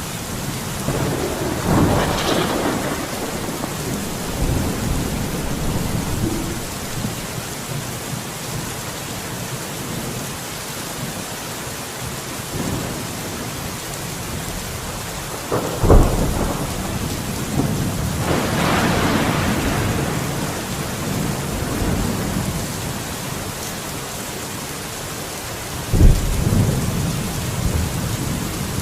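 Steady heavy rain with thunder: a rumble swelling about two seconds in and again about two-thirds through, and two sharp close cracks of thunder, one past the middle and one near the end.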